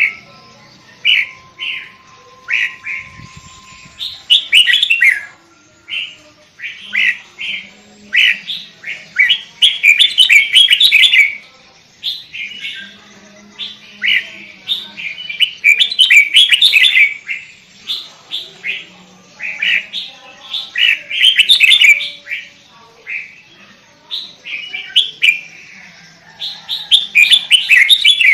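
Sooty-headed bulbul singing in rapid clusters of bright chirping notes, phrase after phrase with short pauses between.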